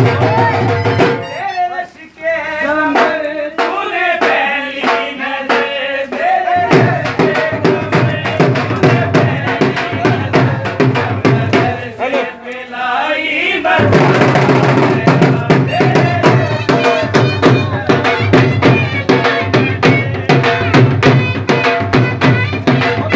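Dhol drumming: fast, driving strokes on a double-headed barrel drum played with sticks, under a wavering folk melody. The drumming thins out twice, for a few seconds a little after the start and again about halfway through, while the melody carries on.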